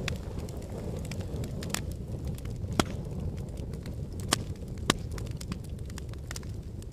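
A fire burning with a steady low rumble and constant small crackles, with three sharper pops in the middle.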